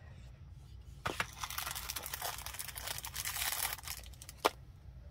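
Burlap drawstring pouch rustling and scratching as it is opened and handled, a dry crinkly noise full of small ticks, followed by one sharp click near the end.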